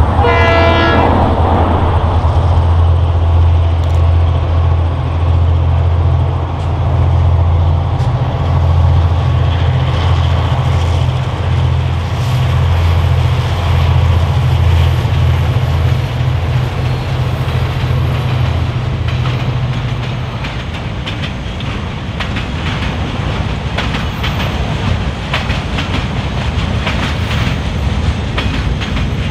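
A short train horn blast right at the start, then a lash-up of four KiwiRail DC- and DF-class diesel-electric locomotives passing with a deep engine rumble. About 20 seconds in, the engine sound drops away and container wagons roll by with a clickety-clack of wheels over the rail joints.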